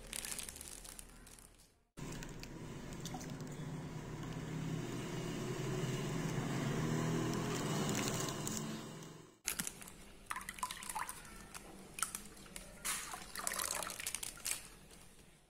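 Plain soy milk poured in a steady stream into a glass bowl of milk, a liquid splashing sound that grows louder and then cuts off suddenly about nine seconds in. After that come fainter, broken trickles and splashes.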